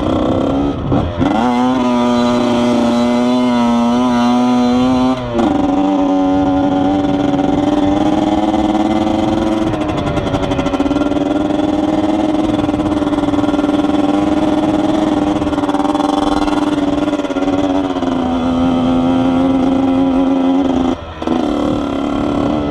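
Yamaha YZ80's two-stroke single-cylinder engine running hard as the dirt bike is ridden, its pitch climbing about a second in and then held high. The engine note cuts off briefly about five seconds in and again near the end, picking back up each time as the throttle comes back on.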